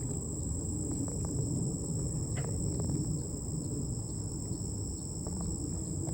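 Steady, high-pitched chorus of insects, an unbroken shrill buzz that does not change, over a low rumble.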